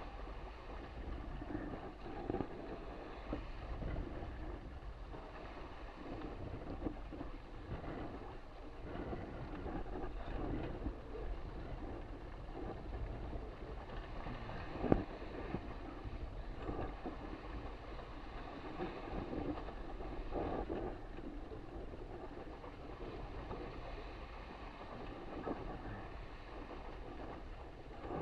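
Wind buffeting the on-board camera's microphone and water rushing past an RS600FF hydrofoil dinghy as it sails at about 13–14 knots. One sharp knock comes about halfway through.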